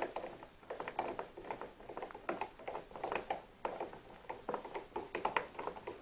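Hand screwdriver driving a wood screw through a metal door strike plate into the jamb: short irregular scrapes and clicks, about two or three a second, as the handle is turned and regripped.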